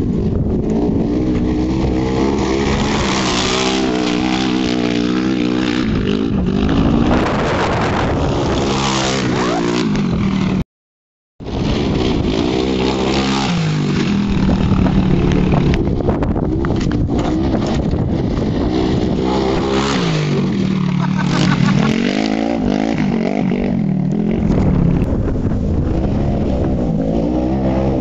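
Polaris RZR XP 900 side-by-side's twin-cylinder engine revving hard, its pitch rising and falling again and again as the vehicle is driven fast along a dirt trail. The sound cuts out completely for under a second about eleven seconds in.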